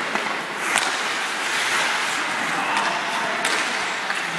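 Ice skate blades scraping and carving on rink ice, a steady hiss, with two sharp cracks of hockey gear striking, about a second in and again near the end.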